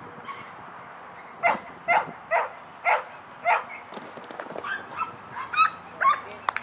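A border collie barking repeatedly while running an agility course: five sharp barks about two a second, then higher, shorter yips in the last few seconds. A couple of sharp clicks come right at the end.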